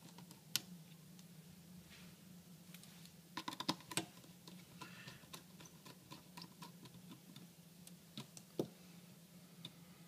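Faint scattered metallic clicks and ticks of a small T8 Torx screwdriver working tiny screws out of a 2012 Mac mini's internal frame, with a quick run of clicks about three and a half seconds in. A faint steady low hum runs underneath.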